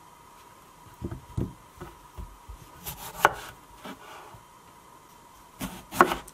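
Chef's knife cutting raw potatoes on a wooden cutting board: a few soft thuds as potatoes are handled and set down about a second in, then sharp knocks about three seconds in and again near the end as the blade goes through a potato and strikes the board. A crunch in the cut is the sign of a hard, firm potato.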